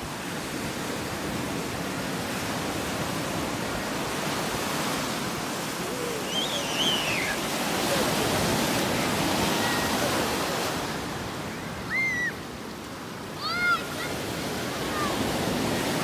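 Black Sea surf breaking and washing up the sand in a steady rush of waves. A few brief high calls cut through it, the two loudest near the end.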